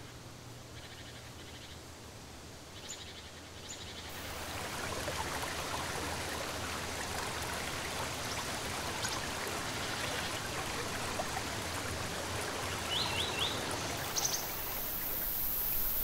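Shallow creek water running with an even rushing hiss, which grows louder about four seconds in. A few short high chirps sound over it, three in quick succession near the end.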